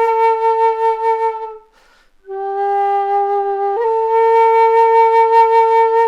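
PassionFlute in F, a Native American–style flute, playing slow held notes with light reverb. A long note fades out, and after a short gap for breath a lower note follows, which steps up about two-thirds of the way in to another long held note.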